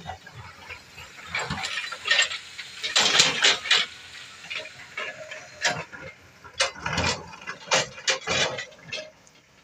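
Loose quarry stone crunching and clattering in irregular bursts of sharp knocks.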